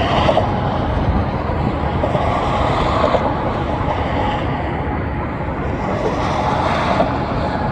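Freight train rolling past with a steady rumble of wheels on rail, as the rear distributed-power locomotive, an EMD SD70ACC diesel, goes by.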